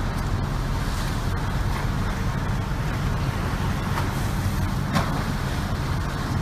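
A steady low rumble with a haze of noise over it, and one sharp crack about five seconds in.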